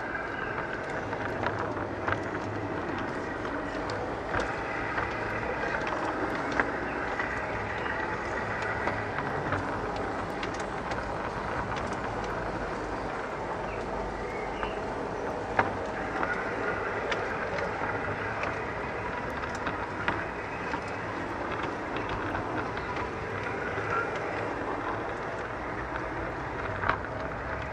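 LGB garden-scale model train running along its track, heard from on board: a steady motor-and-gear whir with wheels rolling on the rails. Occasional sharp clicks come a few seconds apart.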